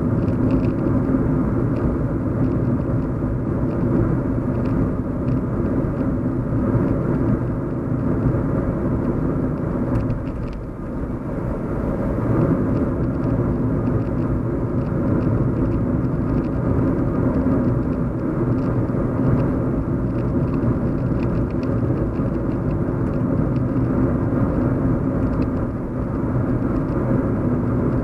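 Steady low hum of a car driving, heard from inside the cabin: road and engine rumble, easing briefly about ten seconds in.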